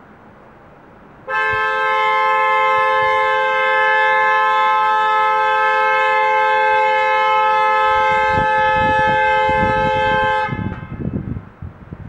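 Car horn held down in one long steady blast of about nine seconds, two tones sounding together, then released. Irregular low thumps are heard over the last few seconds of the blast and just after it.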